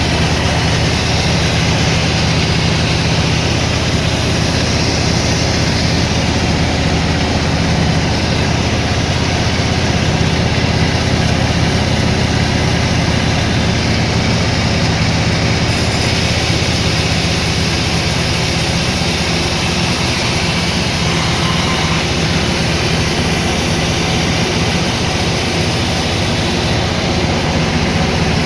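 Sawmill machinery running steadily: a constant low hum with a hiss of noise above it.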